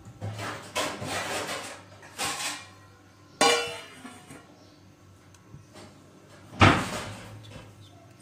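A stainless steel plate set as a lid on a steel cooking pot. Handling and scraping sounds come first, then a sharp metallic clink that rings briefly about three and a half seconds in, and a louder knock later on, over a faint low hum.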